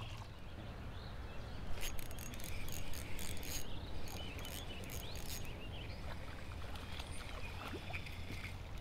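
Light clicks and taps from a spinning rod and reel being handled, bunched a couple of seconds in, over a steady low outdoor hum with faint high chirps.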